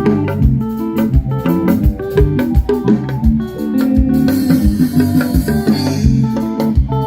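Band music with a steady drum beat and held keyboard chords, with a bright wash of high sound, like cymbals, between about four and six seconds in.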